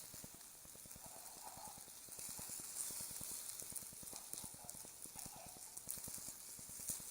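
Newspaper burning in a small fire grill, crackling with a dense, irregular run of small pops and snaps over a soft hiss.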